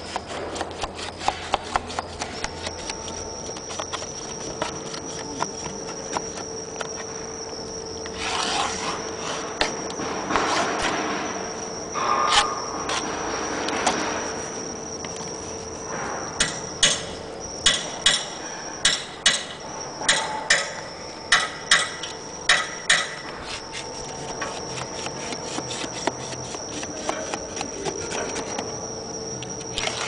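Rubbing and rustling as rock-wool insulation strips are handled and pressed flat. Beyond the halfway point a run of sharp knocks comes at about two a second. A steady high whine runs underneath.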